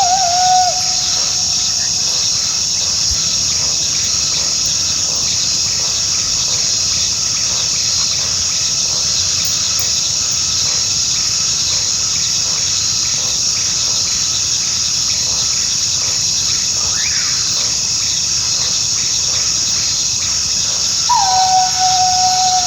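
Coyote howling: one long, level howl ends within the first second, and another begins about 21 seconds in and is held steady. Between them, faint rising and falling howls sound over a steady high insect chorus.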